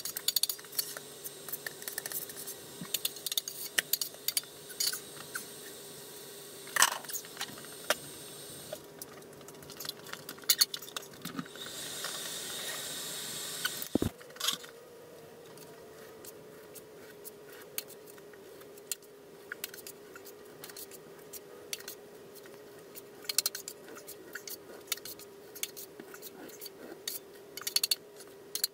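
Hand tools clicking, tapping and scraping in irregular bursts over a steady hum: drywall repair work. About halfway through, a single dull knock as a hand bumps the camera.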